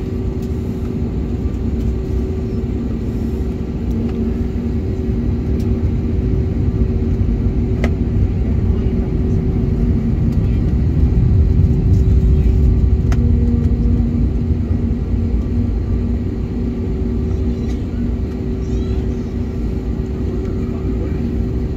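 Inside an Airbus A321neo's cabin on the ground, the engines run at idle with a steady low rumble and a two-tone hum. The rumble swells a little through the middle and then settles.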